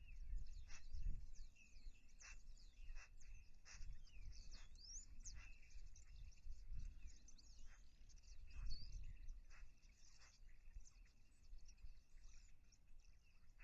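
Small birds chirping and calling in quick, scattered notes, some sliding up or down in pitch, over a faint low rumble.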